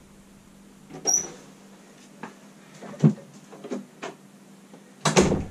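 A wooden panelled door being opened, with a latch click and a short high squeak about a second in. Then knocks and footsteps as someone comes through carrying a rucksack, and a louder bump just after five seconds.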